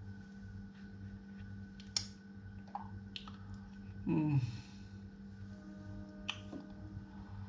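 Faint clicks and taps of a mobile phone being handled and dialled over a steady low room hum. About four seconds in comes one short, louder sound that falls in pitch, like a brief hum or grunt from the man.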